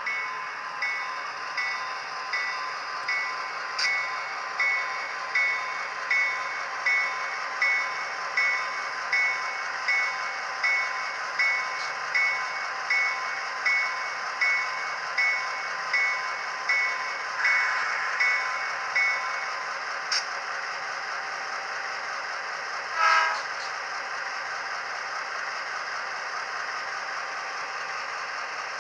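Soundtraxx Tsunami sound decoder in an HO-scale EMD GP38 model locomotive playing diesel locomotive sounds through its small onboard speaker: a steady engine sound under a locomotive bell ringing evenly, about one and a half strikes a second, which stops about two-thirds of the way through. A single brief, louder sound comes a few seconds after the bell stops.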